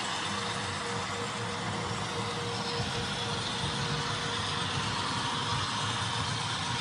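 HO scale model train running on a layout: a steady, unbroken running sound with a low rumble and a faint steady whine.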